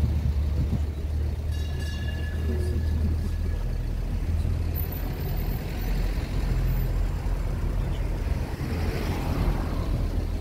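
Tourist road train driving along a street, its engine a steady low drone under tyre and road noise, with a brief faint high squeal about two seconds in.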